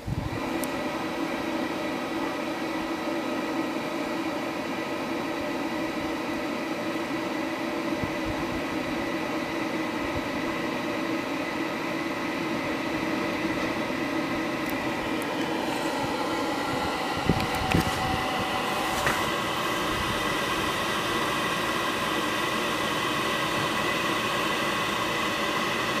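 TSK HAS-20 Multi Dryer electric hot-air generator switched on: its blower starts at once and runs steadily with a whine of several steady tones over an airy hiss. The tones shift slightly partway through, with a few light knocks around the same time.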